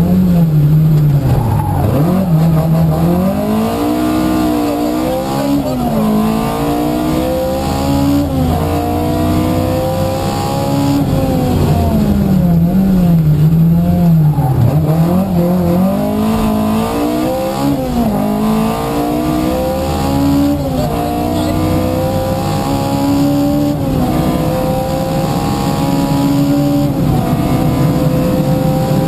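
Opel Kadett 2.0E rally car's four-cylinder engine at full throttle, heard from inside the cabin. The revs climb again and again and drop sharply at each gear change, and every so often fall away for a corner before pulling hard once more.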